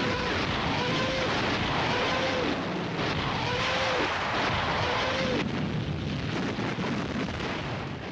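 German WWII Nebelwerfer rocket launcher firing a salvo: a string of short screaming wails, about one a second, each rising and falling, over a loud rushing roar of rocket motors. The sound dies away near the end.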